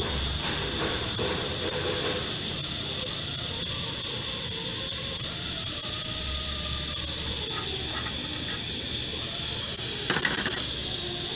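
Steady high hiss, with faint metallic clicks and taps from a truck wheel hub being taken apart by hand, and a louder short knock or scrape about ten seconds in.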